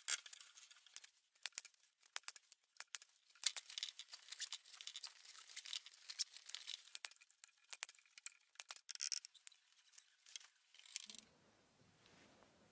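A sharp chisel cut into wood, then a long run of irregular dry crackling and rustling clicks as thin flexible strips are pulled and woven through a chair seat. About eleven seconds in, this gives way to a faint low hum.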